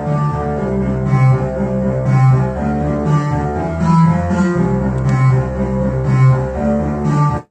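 Analog synthesizer music from Behringer MS-1 and Pro-1 synths played through a Behringer Virtualizer Pro DSP2024P effects processor: a sustained bass line changing note about once a second under a higher melodic part, cutting off abruptly at the very end.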